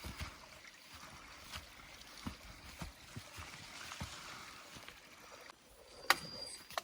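Footsteps walking along a dirt and gravel forest trail at a steady pace, about one or two steps a second, over a rustling hiss. A sharp click near the end.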